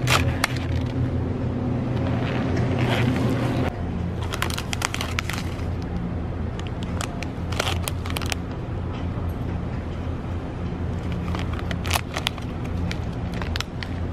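Plastic packaging crinkling in short bursts as egg packs and bags of seasoning are handled, over a steady low hum.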